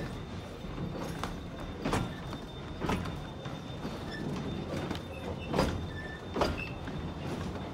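Heritage railway carriage rolling along the track: a steady rumble from the wheels on the rails, with sharp clacks roughly once a second as the wheels cross rail joints.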